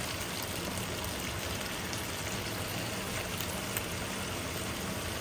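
Beef stir-frying in a nonstick pan: a steady sizzle as soy sauce is drizzled over the hot meat, with a low steady hum underneath.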